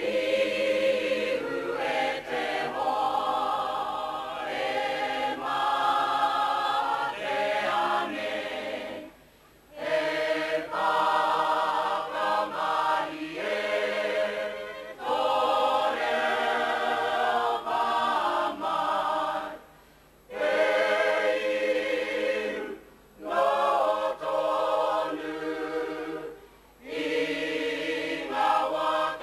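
Māori kapa haka group of men and women singing together as a choir, in phrases of a few seconds broken by short pauses.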